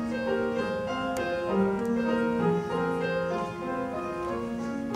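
Piano playing, a melody of successive notes over held chords.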